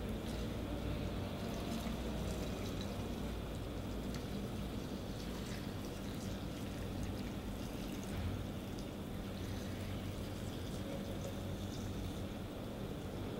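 Clear liquid poured steadily into a glass jar packed with soap paste, filling it to the brim: diluting the paste to make liquid soap.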